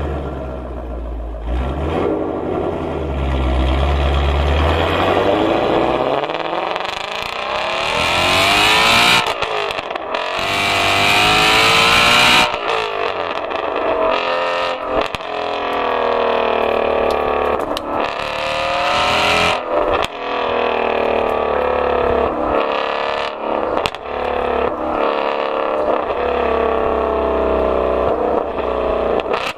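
Ford Mustang Shelby GT350R's 5.2-litre flat-plane-crank V8 accelerating hard. The engine note climbs in pitch again and again, breaking off between climbs as the six-speed manual shifts up.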